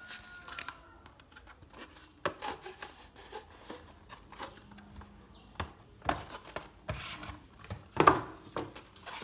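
A small retail box for a USB cable being opened by hand: cardboard and plastic packaging rubbing and sliding, with scattered sharp clicks and taps, the loudest a little after eight seconds in.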